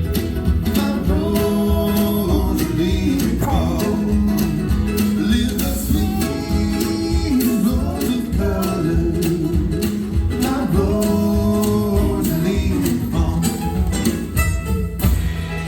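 A live acoustic string band playing in a bluegrass style, with strummed and plucked guitar under sung vocal phrases.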